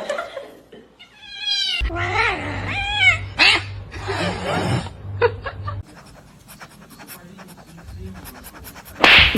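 Cat meowing and yowling, several drawn-out bending calls in the first five seconds, then quieter with light clicks, and a sudden loud noisy burst near the end.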